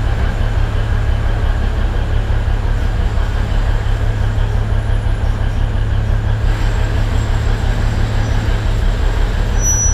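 Alishan Forest Railway train under way behind a DL-41 diesel locomotive: a steady, loud low rumble of the diesel engine and the running gear on the track.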